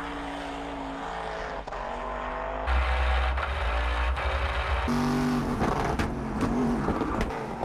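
Race-car engine of the Hoonicorn, a 1965 Ford Mustang drift car with a twin-turbo V8, running hard up a mountain road. Its pitch rises and falls with the throttle. The sound jumps twice as the shots cut, about three seconds in to a deep in-car rumble, and again about two seconds later.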